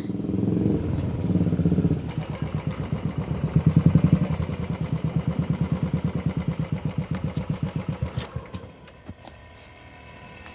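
Motorcycle engine running, louder for the first two seconds, then an even putter of separate low firing pulses that fades and stops about eight and a half seconds in.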